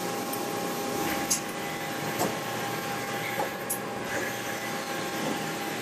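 Steady hum of machine-shop machinery running, with a steady tone through it. A few light clicks and knocks come from hands working on the lathe tool post and its coolant hoses.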